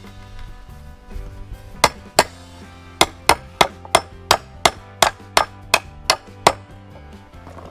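Hammer blows driving carriage bolts through the pre-drilled holes of a picnic table kit: two strikes, a short pause, then a steady run of about eleven strikes, roughly three a second.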